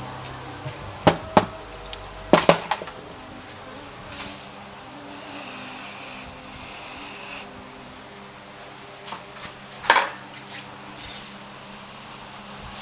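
Metal hand tools clinking and knocking against scooter parts, in sharp separate strikes, with a hiss lasting about two seconds midway.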